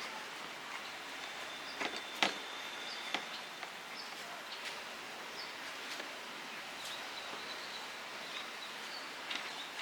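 Steady outdoor background hiss with a few light clicks and taps scattered through it, the sharpest about two seconds in, and faint high chirping coming and going.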